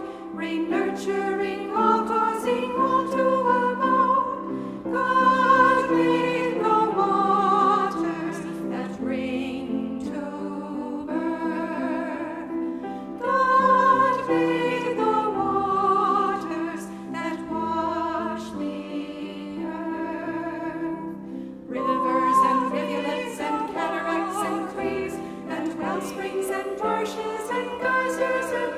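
Voices singing a slow, melodic song in choral style, with vibrato on the held notes.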